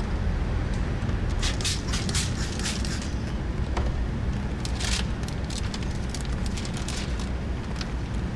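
Window tint film crackling and rustling as the rolled sheet is handled, in bursts about a second and a half in, again around five seconds, and lighter after, over a steady low rumble.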